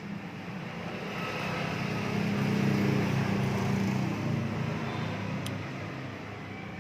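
A motor vehicle passing by: its engine hum swells to a peak about three seconds in, then slowly fades.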